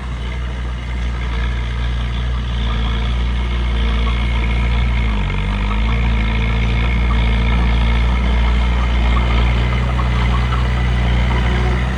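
Bulldozer's diesel engine running, growing louder over the first few seconds and then holding steady, with a brief dip in pitch about five seconds in and a high whine over it from about four seconds in.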